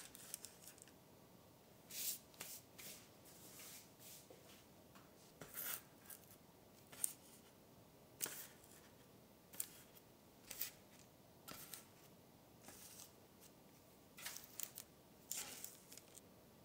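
Quiet, irregular rustles and light taps of hands setting raw dough buns down on a parchment-lined baking tray, the paper crinkling briefly each time, about fifteen short touches.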